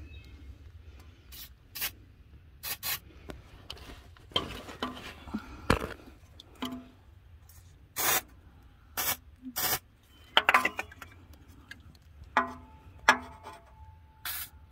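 Repeated short hisses of a WD-40 aerosol can spraying penetrating oil onto rusted bolts, mixed with hands and can rubbing and scraping against the metal. The oil is going on to loosen the rusted starter fittings.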